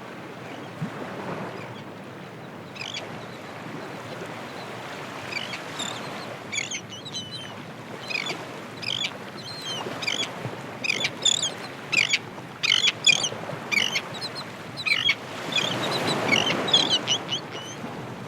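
Ocean waves washing in, a steady rush of surf that swells louder near the end, with many short bird calls over it from a few seconds in.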